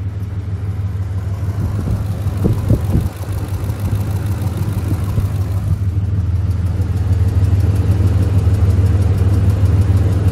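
Ford 5.4-litre three-valve Triton V8 idling with a fast, rhythmic tick-tap, which gets louder about halfway through. The mechanic traces the tick-tap to a loose spark plug leaking exhaust gases past its threads, not to the roller followers.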